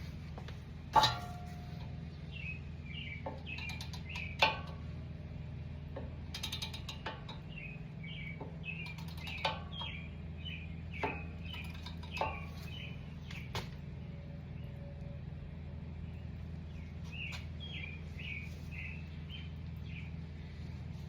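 Metal hand tools knock against a brake caliper a handful of times, loudest about a second in, and a brief run of ratchet clicks comes midway, as the caliper piston is pushed back with a caliper press. Birds chirp in short repeated notes throughout, over a steady low hum.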